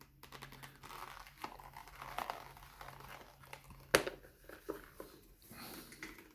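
Pistol holster being handled: rustling and crinkling with scattered small clicks, and one sharp click about four seconds in.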